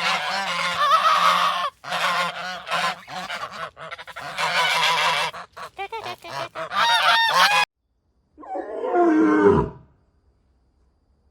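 Geese honking, many calls overlapping, stopping abruptly about seven and a half seconds in. About a second later comes one long call from a larger animal, sliding down in pitch.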